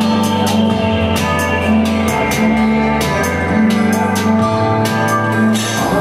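Live electronic music from a laptop sequencer rig: held low bass notes and sustained synth tones over a steady ticking beat, about two or three ticks a second.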